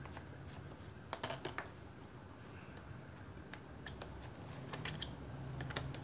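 Scattered small clicks and ticks of a Phillips screwdriver turning a screw out of an electric fan motor's frame, a quick cluster about a second in and a few more near the end.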